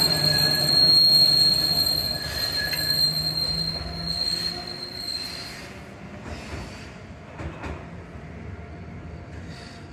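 Randen streetcar running by, its wheels squealing on the rails in a steady high whine over a low running hum. The sound fades away over the first half, leaving a few faint clicks.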